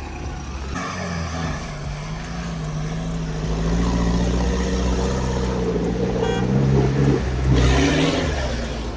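Off-road 4x4 engine running under throttle. Its pitch climbs over the first few seconds, then holds loud and steady. A rushing burst of noise comes near the end.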